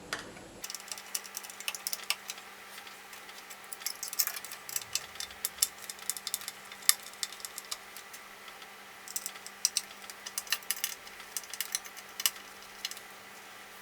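Small screwdriver turning screws and clicking against metal as a hard drive is fastened into its mounting bracket: irregular small clicks and taps, coming in clusters.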